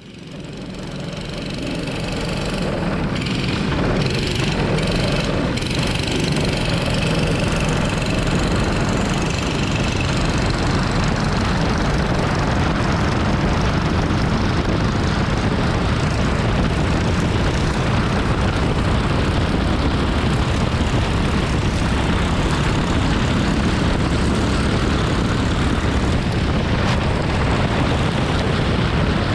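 Racing kart's single-cylinder four-stroke Predator engine running hard at race speed, heard onboard with other karts close around it. The sound rises over the first few seconds, then holds steady.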